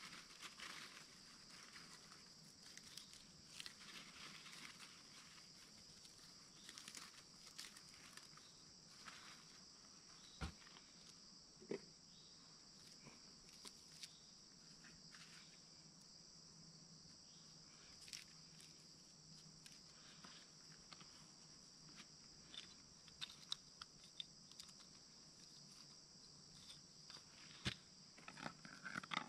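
Faint steady high-pitched drone of insects, with scattered light clicks and knocks of metal cooking kit being handled, the sharpest about ten seconds in and near the end.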